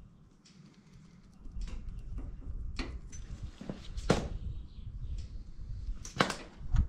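Metal thermostat housing being handled and set down over the new thermostat on a Ferguson TEF20 engine: scattered light clicks and a few sharp knocks, the loudest about four and six seconds in.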